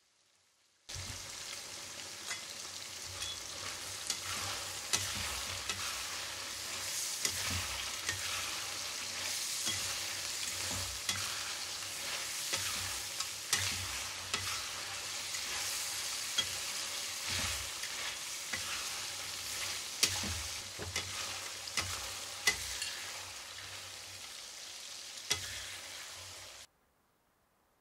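Crawfish, chillies and cucumber stir-frying in a wok: a steady sizzle with a metal spatula repeatedly knocking and scraping against the pan. It starts about a second in and stops suddenly near the end.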